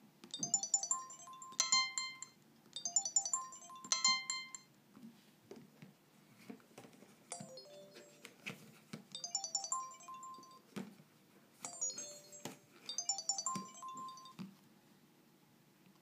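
Samsung SGH-B270/C270 flip phone playing its short electronic flip tone through its small speaker: brief chiming melodic phrases, about six of them in pairs, with a few sharp clicks as the clamshell is handled.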